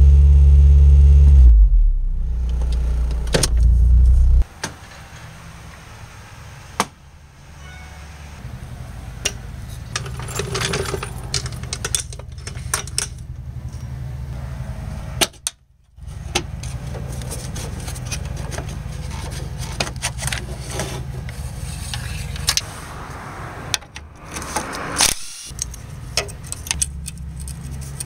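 Honda Civic's engine idling, heard from inside the cabin as a loud low hum that drops slightly after about a second and a half and stops about four seconds in. After that, quieter scattered clicks, knocks and rattles of tools and metal parts being handled.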